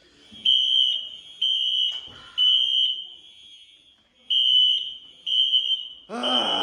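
Fire alarm beeping in the temporal-three evacuation pattern: three high-pitched half-second beeps about a second apart, a pause, then three more.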